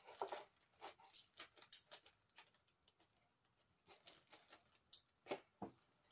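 Faint, scattered clicks, taps and light knocks of a ceramic electric wax warmer and its cord being handled and turned over, in two clusters, the second ending in a couple of firmer knocks.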